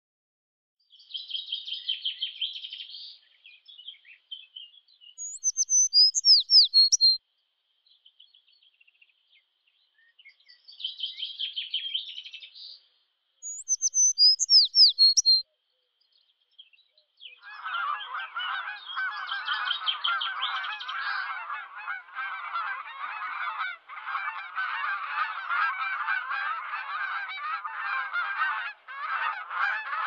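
A small songbird alternates chattering trills with bright, quick whistled phrases, twice each. About halfway through, a large flock of big waterbirds starts honking in a dense, continuous chorus that carries on to the end.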